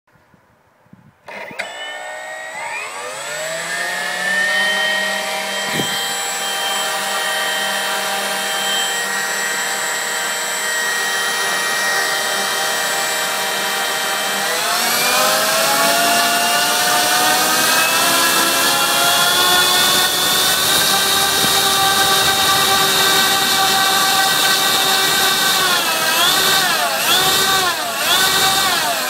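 Electric motor with a 4:1 reduction gearbox turning a four-blade model-aircraft propeller on a thrust test stand: a whine with several stacked tones. It starts about a second and a half in and rises in pitch to a steady speed. It steps up in speed about halfway through and again a few seconds later, then speeds up and slows down several times near the end.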